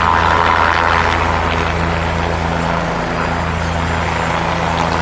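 Helicopter sound effect: a steady engine-and-rotor drone with a low hum.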